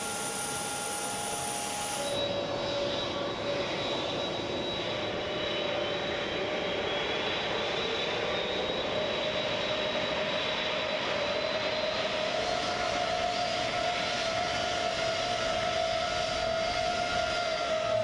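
C-5 Galaxy's turbofan engines running on the ground: a steady jet roar with high whines that climb slowly in pitch.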